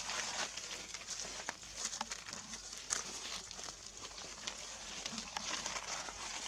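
Outdoor ambience: a steady hiss with scattered short clicks and rustles.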